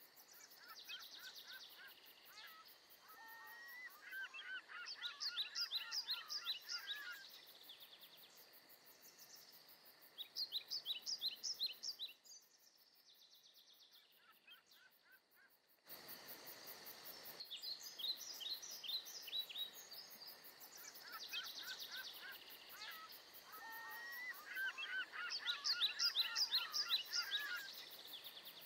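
Songbirds singing: phrases of quick chirps and short trills every few seconds over a faint outdoor hiss, with a quieter stretch near the middle.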